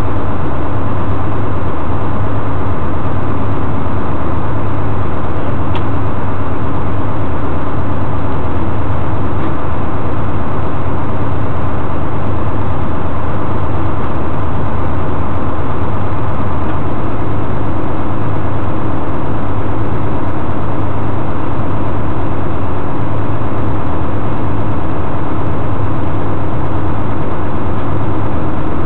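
Tow truck engine idling steadily, a low, even running sound that does not change.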